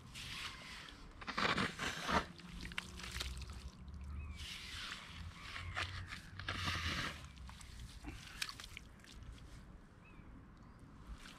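Garden fork digging into wet sand: squelching, crunching and scraping as the tines go in and clods of sand are levered up, loudest about one and a half to two seconds in, with more digging around four and seven seconds in.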